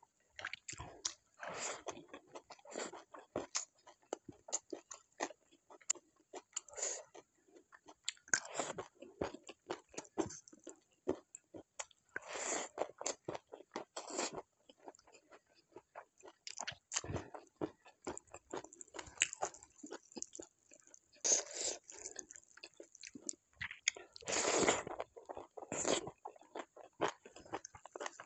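Close-up mukbang eating: a person chewing and biting food with crunchy, crackly bites, in an irregular run of short mouth noises and louder bites.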